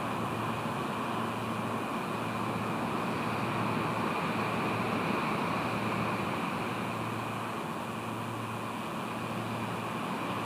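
Steady rushing of wind and sea on an exposed clifftop camera microphone, swelling slightly midway, with a low steady hum underneath.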